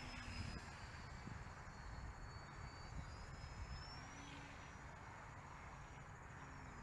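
A radio-controlled model airplane flying past. Its motor is a faint high whine that sags in pitch and then climbs again, over a low rumble of wind on the microphone.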